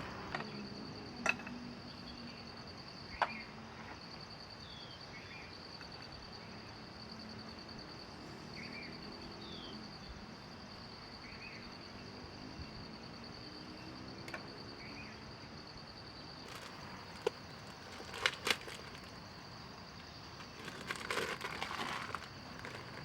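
A steady high-pitched insect drone in forest, with a few faint short chirps. Several sharp clicks or taps and a burst of rustling handling noise near the end.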